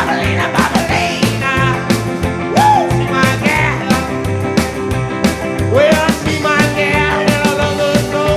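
1950s-style rock and roll band playing, with drums keeping a steady beat under bass and guitars. One long note is held through the last couple of seconds.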